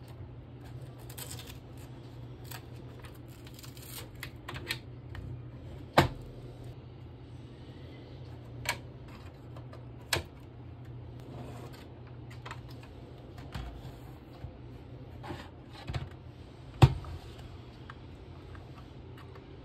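Hard plastic clicks and knocks from a laptop cooling pad being handled and adjusted, with the sharpest snaps about six seconds in and near the end, over a steady low hum.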